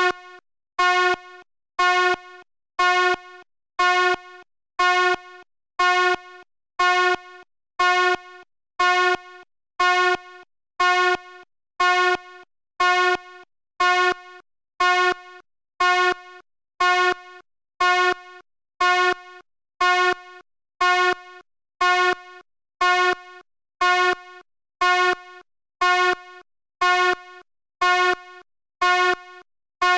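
Fire alarm horn sounding a short buzzing blast about once a second, in an even, unchanging rhythm.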